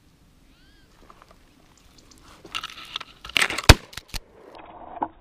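Dry brush rustling and crunching underfoot, then one sharp, very loud shot from a 20-gauge Remington 870 pump shotgun a little over three and a half seconds in, with smaller sharp clicks just before and after it.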